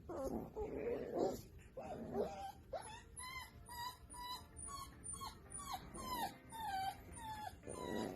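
Corgi whining and yipping: rough throaty sounds at first, then from about three seconds in a run of short, high whines, about two a second.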